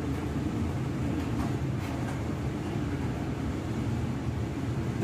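Laminar flow cabinet's blower fan running with a steady hum. Two faint ticks come about one and a half and two seconds in.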